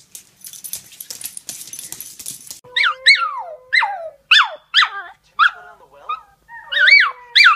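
A rush of clicking and rustling, then from a few seconds in a series of short howling yelps, each sliding down in pitch, nearly two a second: a small dog howling along with a husky video playing on a tablet.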